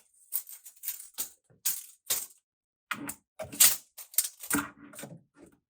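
Irregular light clicks, taps and rattles of handling noise as the inside of a chest freezer is measured, with two louder knocks a little past the middle.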